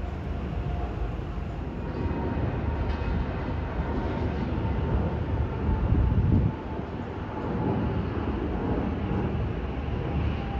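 Steady low rumble of a moving vehicle, with a few faint steady tones over it. It swells about six seconds in and drops off sharply half a second later.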